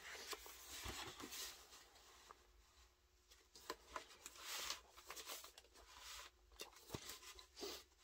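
Pages of a large hardcover photobook being handled and turned by hand: a few soft paper swishes and light rustles, with small taps of fingers on the paper.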